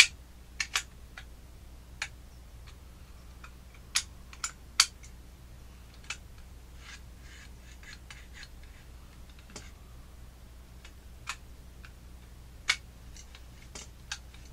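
Irregular sharp clicks and clacks of a 3D-printed plastic bottle-opener cap gun being worked by hand, its slide catching as it struggles to move through the body. The loudest clicks come in a quick cluster about four to five seconds in, with another near the end.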